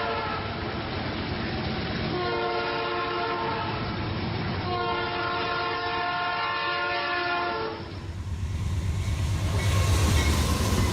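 Real locomotive air horn sounding several notes at once: the tail of one blast just at the start, then two long blasts. About eight seconds in it cuts to the low rumble of a moving train, which grows louder.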